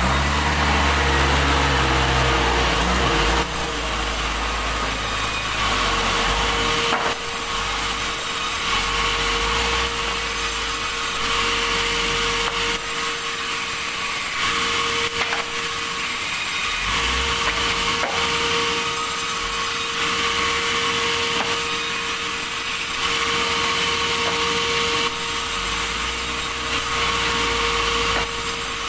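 Sawmill saw cutting through a log: a steady, loud rasp of blade in wood over a constant machine hum, with a heavier low rumble for the first three seconds or so.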